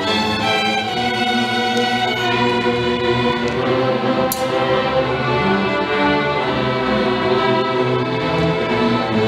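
Student string orchestra of violins and cellos playing long, sustained bowed chords that shift every second or so.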